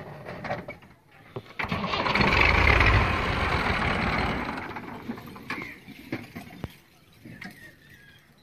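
Massey Ferguson 240 tractor's three-cylinder diesel engine being started: a loud burst of engine noise begins about a second and a half in, is loudest around three seconds and dies away by about five seconds.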